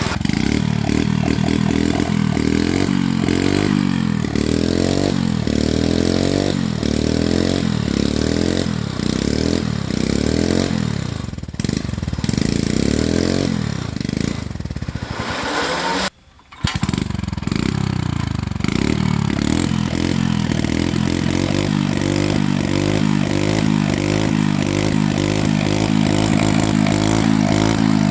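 Small petrol engine revved in repeated quick bursts, each one rising in pitch. After a brief break about halfway through, it runs on steadily at a fast idle.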